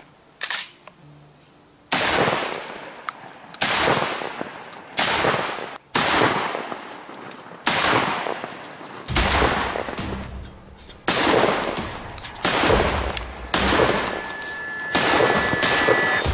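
Saiga 12 semi-automatic 12-gauge shotgun firing about ten shots in a slow, steady string, roughly one every second or so, beginning about two seconds in. Each shot is a sharp bang with a short echo.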